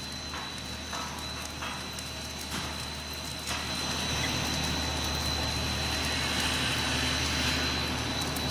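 Corn puff snack extruder running: a steady motor hum with a constant high whine, and a louder rushing noise that comes in about three and a half seconds in.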